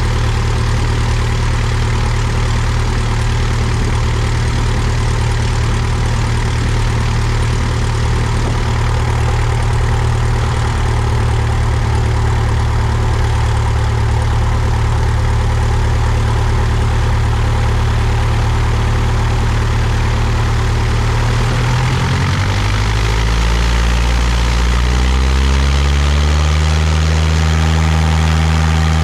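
Cessna 172's piston engine and propeller running at low taxi power. About three quarters of the way through, the engine speeds up over a few seconds as power is added, then holds steady at higher revs.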